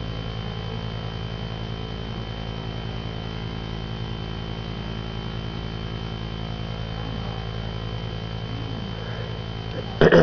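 Steady electrical hum with hiss and a thin high whine, unchanging throughout. A brief loud sound comes at the very end.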